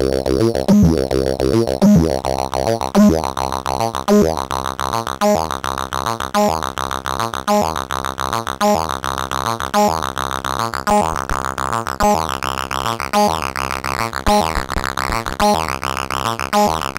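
Plankton Electronics Ants! analog synthesizer playing a repeating, pulsing note sequence through the SPICE saturation and distortion unit, its tone rich and buzzy. The sound grows brighter over the first few seconds as the top end opens up.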